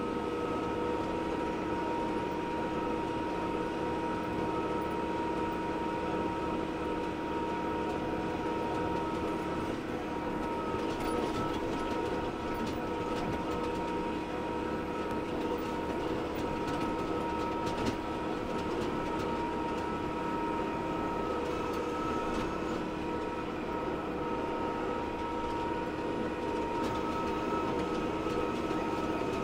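Tractor engine running steadily while raking hay: an even drone with several held tones over it.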